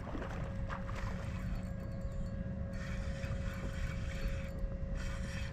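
Quiet water-and-kayak ambience: a low steady rumble with a faint steady hum, and a soft hiss for a couple of seconds in the middle.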